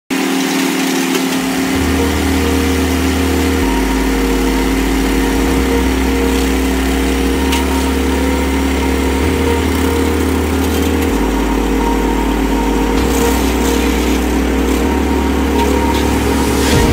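Engine of a wheel trencher running steadily, mixed with electronic background music whose bass line changes note every couple of seconds.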